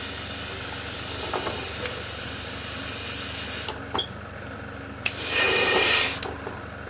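Sparmax DH-103 airbrush spraying thinner through into a cleaning pot to flush out leftover paint: a hiss of about four seconds, a pause, then a shorter burst about five seconds in, over a steady low hum.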